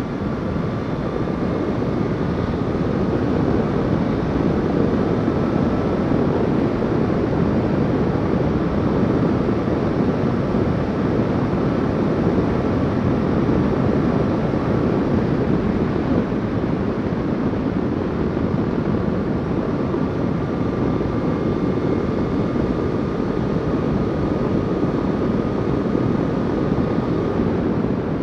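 Motorcycle riding at steady road speed: a loud, even rush of wind over the microphone with the engine's drone underneath. A faint high whine comes and goes.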